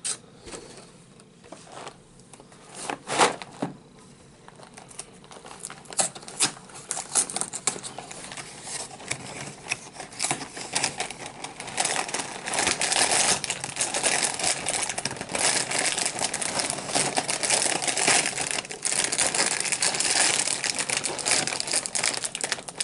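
Cereal box and its plastic liner bag being forced open by hand: a few sharp snaps in the first seconds, then steady crinkling of the bag that grows louder from about five seconds in. The pack is stiff and hard to open.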